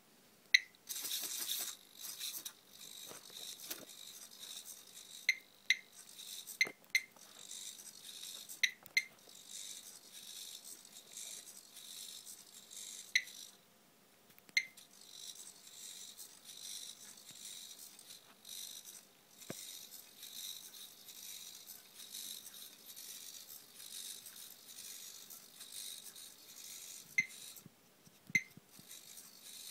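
Homemade hexapod ladybug robot walking on a desktop: its small servo motors whir and rattle steadily, with sharp clicks every few seconds as its legs tap and knock on the desk. The whirring stops briefly about 14 seconds in.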